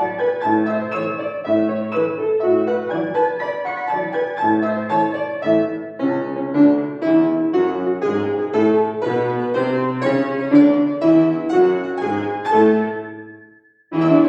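Solo piano playing a classical piece at a steady pace, in struck notes and chords. Near the end the playing dies away into a brief pause, then a new chord sounds.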